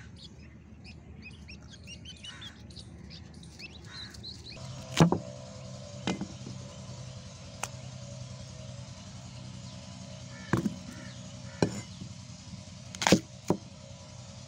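Ducklings and a chick peeping in quick, high repeated chirps. After about five seconds this gives way to a knife chopping raw green mango against a wooden stump, about seven sharp, irregular knocks.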